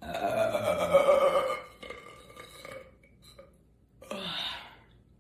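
A woman's long, loud burp lasting about a second and a half, its pitch sagging slightly. A shorter, breathier, quieter sound follows a few seconds later.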